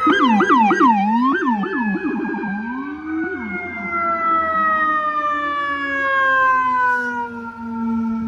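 Emergency sirens of FDNY apparatus. For the first two seconds or so one siren yelps in quick rising-and-falling sweeps, a few per second. Under it another siren tone falls slowly and steadily in pitch as it winds down.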